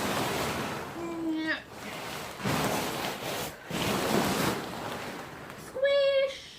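The nylon fabric of an inflatable yard decoration rustles and crumples in surges as it is squashed flat to force the air out. There is a brief pitched tone about a second in and another near the end.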